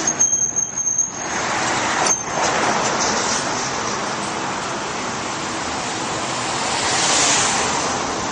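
Steady rushing noise of passing road traffic, swelling near the end as a vehicle goes by, with a brief thin high squeal in the first second.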